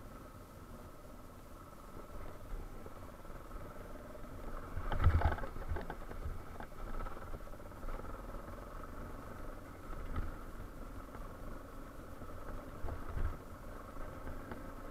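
Yamaha Serow 250's air-cooled single-cylinder engine running steadily at low revs, with a few irregular knocks and thumps, the loudest about five seconds in.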